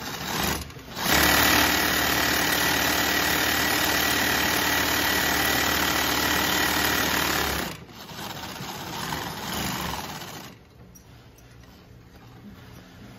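Singer industrial sewing machine running steadily at speed as it stitches through denim. It starts about a second in and stops after about six and a half seconds, followed by a softer stretch of sound.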